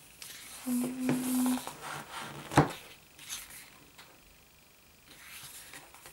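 A softcover photobook handled and opened by hand: paper and card rubbing and rustling, a sharp knock about two and a half seconds in, and page-turning rustles near the end.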